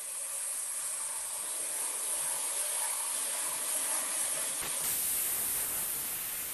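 A wooden toy-car blank held against an 80-grit sanding disc spinning on a lathe at about 600 rpm: the steady sound of abrasive sanding wood.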